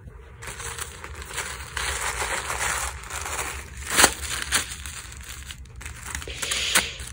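Clear soft-plastic (PE-LD) garment bag crinkling as hands handle it and pull the folded top out. The crackling is irregular, with one sharp loud crackle about four seconds in.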